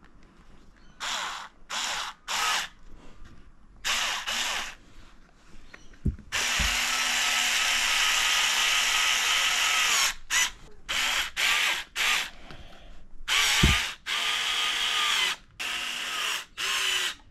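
Power drill driving galvanised screws: several short bursts of the motor, then a steady run of nearly four seconds, then more short bursts and a second run of about two seconds.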